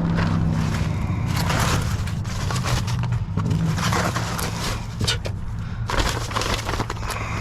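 Plastic bags and food packaging crinkling and scraping as they are handled and rummaged through in a dumpster, irregular crackling bursts over a steady low hum.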